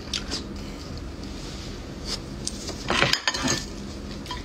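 A plastic tray being picked up and handled on the table, with a brief clatter of sharp knocks about three seconds in and a few light clicks before it.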